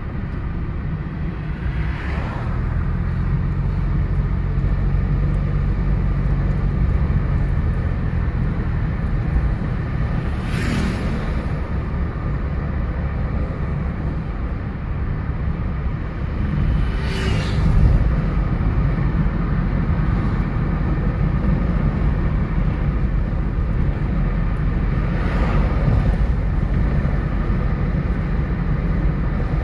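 2014 Nissan Micra automatic driving, its engine and tyres giving a steady low rumble. Four brief whooshes rise over it, spaced about seven to eight seconds apart.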